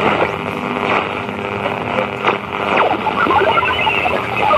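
Shortwave radio receiver playing an odd signal through its speaker: a steady hiss of static with a few quick falling chirps, then from about three seconds in a scatter of short, warbling beeps.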